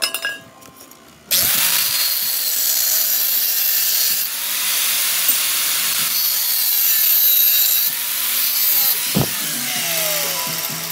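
Angle grinder running under load, its disc grinding a steel rod. It starts about a second in and runs steadily until near the end, with a sharp knock a little past nine seconds.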